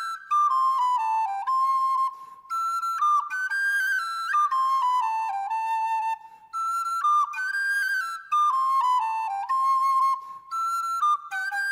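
Background music: a high, flute-like melody of stepping notes, falling in phrases that repeat about every four seconds.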